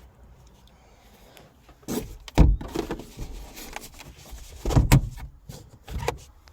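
Handling noise inside a car's cabin: a few heavy thumps and knocks, the loudest about two and a half and five seconds in.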